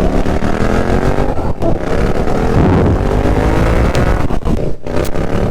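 Nissan Skyline R33's engine accelerating hard under load. Its note climbs steadily and breaks off briefly twice, about a second and a half in and near the end, between rising pulls.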